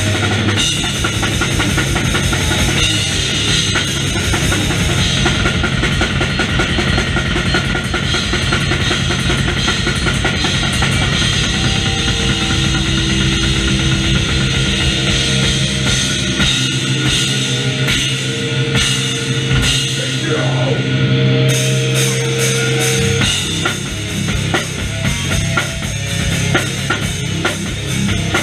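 Live metal band playing loud: distorted guitars, bass and a drum kit with bass drum and cymbals. About halfway through, the guitar and bass hold ringing notes while the bass drum drops away, and the full band comes back in near the end.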